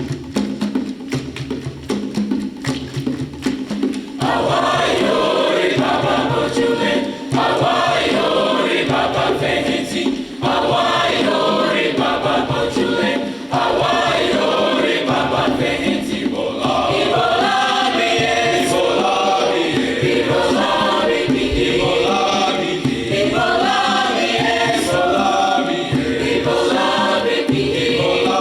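A choir singing, coming in about four seconds in over a short rhythmic instrumental introduction and then carrying on with accompaniment.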